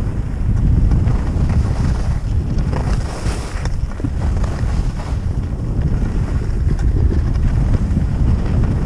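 Wind buffeting a skier's worn action-camera microphone while skiing downhill: a steady low rumble of wind noise.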